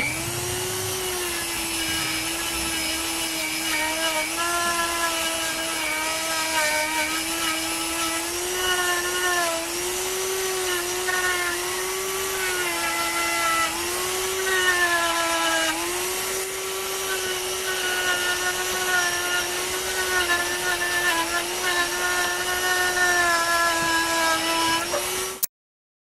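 Small electric power tool motor running with a steady whine, its pitch sagging briefly now and then as it is pressed against the work. It cuts off suddenly near the end.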